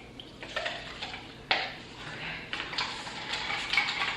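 Light clinks and knocks of kitchenware as a drink is mixed: a few separate clicks, the sharpest about a second and a half in, then a quicker run of small clicks and clatter near the end.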